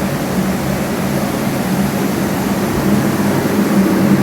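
Structural drying equipment running: blowers, fans and a desiccant dehumidifier pushing air, a steady loud rush of air with a constant low hum.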